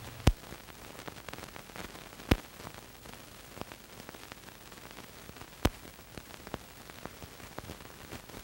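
Steady hiss with scattered crackles and three sharp pops: the surface noise of an old film soundtrack that holds no recorded sound.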